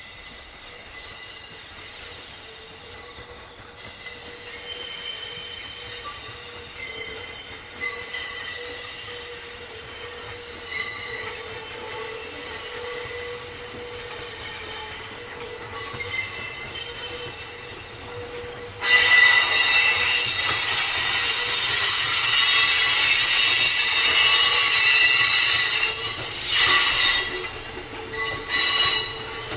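Electric train wheels squealing as the train creeps through depot track: steel wheel flanges grinding on tight curves and points. A faint, steady high whine runs first. About two-thirds of the way through, a loud, high-pitched squeal starts suddenly and holds for several seconds, then breaks into shorter squeals near the end.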